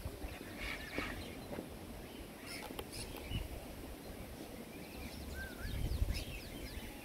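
Aviary birds chirping and calling: scattered short high chirps and quick falling notes, with a short up-and-down whistled note about five and a half seconds in, over a low rumble.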